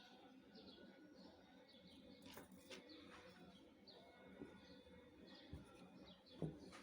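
Faint birds chirping in the background, short repeated calls about twice a second, with a soft click near the end.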